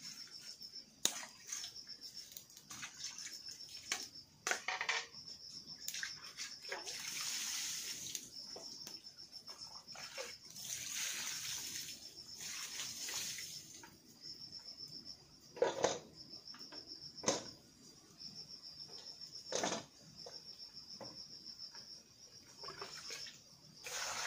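Water poured and sloshing in a cooking pot from a small plastic bowl, with two longer pours in the middle and scattered sharp knocks of the bowl and pot. A steady, high, pulsing insect trill runs underneath.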